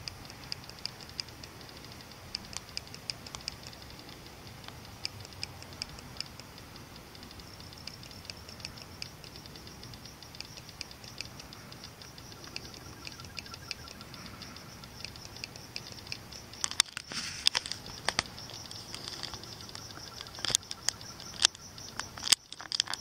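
Irregular short clicks and ticks over a steady high hiss, growing louder and more frequent in the last few seconds.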